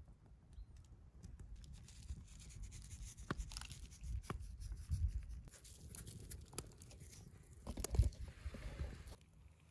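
Coarse salt sprinkled by hand over sliced potatoes, tomatoes and corn on a wooden stump: grains pattering and ticking with rustling of hands, over a low rumble. A louder knock comes about eight seconds in as the corn pieces are handled on the wood.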